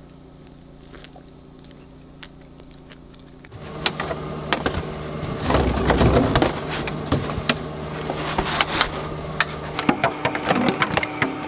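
Large plastic water bottles crinkling, crackling and knocking together as they are handled and gathered up, starting a few seconds in after a quiet stretch.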